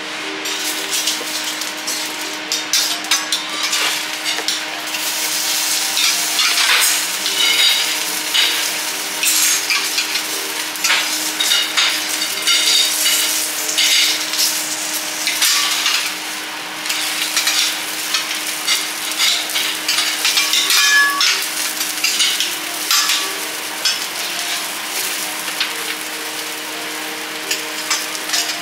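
Oil and vegetables sizzling on a hot stainless-steel teppanyaki griddle, with frequent clicks and scrapes of a metal spatula and fork against the plate.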